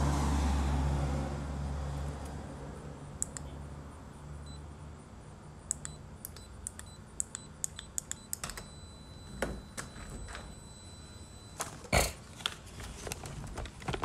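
Buttons being pressed on a TurboLock electronic keypad door lock: an irregular series of sharp clicks and taps, the loudest about two seconds before the end. A low rumble fades away in the first few seconds.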